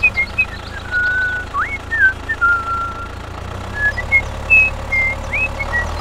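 A string of short high whistled chirps, some held briefly and some sliding quickly up or down, over a steady low engine-like rumble.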